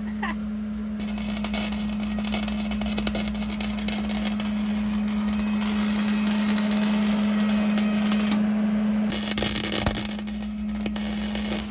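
Loud crackling sizzle in two stretches, the first about seven seconds long and the second a couple of seconds near the end, over a steady low hum.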